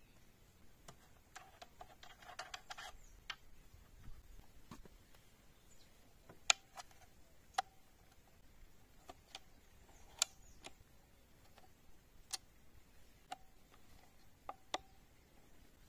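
Small clicks and taps from hands handling a Behemoth PS-R3 .25 PCP air rifle, scattered about a second apart, with a short stretch of rustling about two seconds in.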